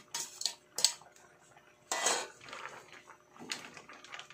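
Metal cookware clinking and scraping: a stainless steel steamer basket knocking against a stainless wok as leaves are tipped in, then stirring in the wok, in separate clinks with the loudest clatter about two seconds in.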